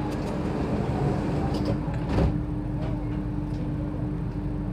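Sliding doors of an Alstom Metropolitan C830C metro train shutting with a single thud about two seconds in, over the steady hum of the train standing at the platform.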